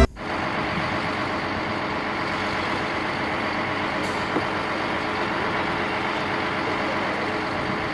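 Cement mixer truck engine running steadily, an even, unchanging drone.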